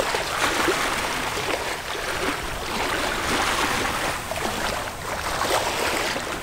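Sea water rushing and splashing along the hull of a moving sailboat, swelling and easing every second or two as the waves pass.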